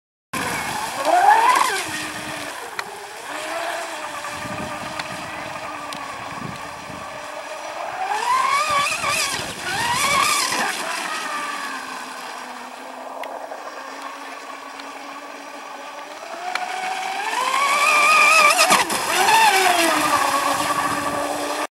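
Pro Boat Miss Geico 29 brushless RC race boat running flat out on a 6S LiPo: a high motor whine that climbs in pitch as the boat comes toward the shore and drops as it passes, three times (near the start, about halfway, and near the end), over the hiss of its spray.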